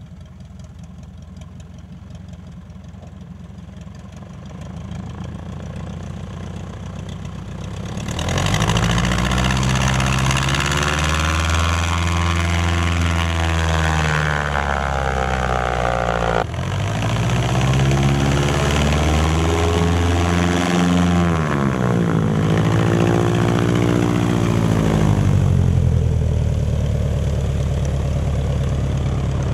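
Pylon-mounted pusher engine and propeller of a Lake amphibian running, moderate at first, then much louder from about eight seconds in as the plane powers up. Its pitch swells and sinks twice, with a sudden break about halfway through.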